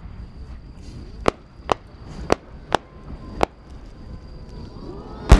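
Aerial firework shells: five sharp cracks spaced over the first three and a half seconds, then one much louder boom near the end that rumbles on.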